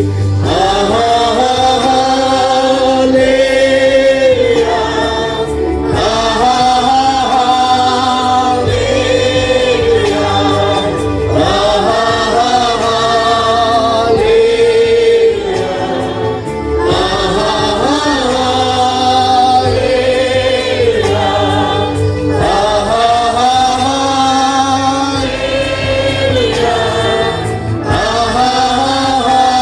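A group of voices singing a Kannada Christian worship song with instrumental backing.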